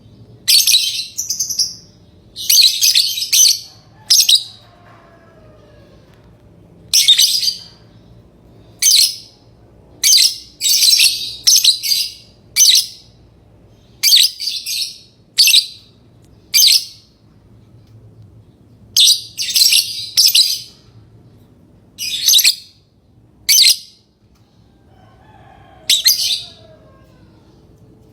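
Lovebirds chirping: short, shrill, high-pitched calls in uneven clusters, some coming two or three in quick succession, with pauses of a second or two between groups.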